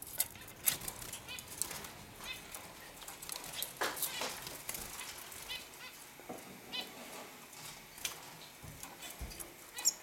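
Caged finches (hooded siskins and red factor canaries) giving short scattered chirps, with wing flutters and sharp clicks and rustles as they hop and land in the wire cages.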